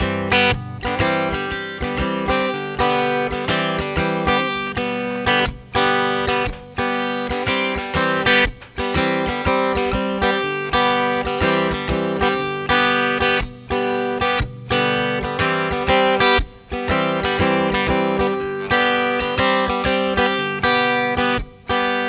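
Background music: a strummed acoustic guitar playing a steady instrumental intro, with no singing.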